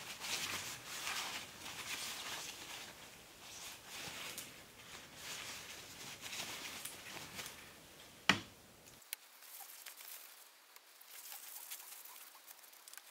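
Paper towel rustling and rubbing as gloved hands wipe excess bluing off black steel sleeves. One sharp knock about eight seconds in, as a sleeve is set down on the bench.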